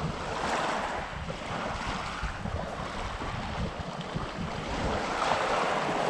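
Sea waves breaking and washing ashore, swelling about half a second in and again near the end, with wind rumbling on the microphone.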